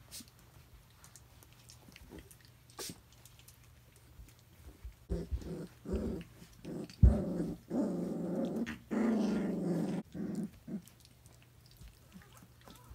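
Three-week-old Briard puppies growling in play, a run of short growls from about halfway that runs into longer growls of a second or two, with a single thump among them.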